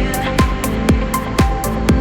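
Background electronic music with a steady kick drum beating about twice a second.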